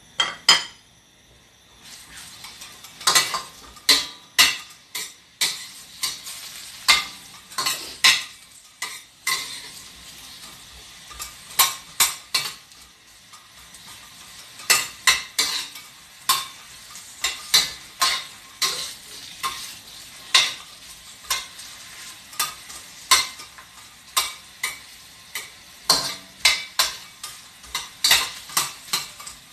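Chopped ginger sizzling in hot oil in a stainless steel wok, starting about two seconds in, while a spatula scrapes and clacks against the pan in irregular strokes as it is stirred.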